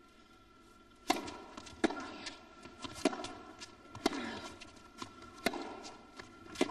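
Tennis rally: a ball struck by racket strings and bouncing on a Taraflex indoor court. There is a sharp crack about once a second, starting about a second in.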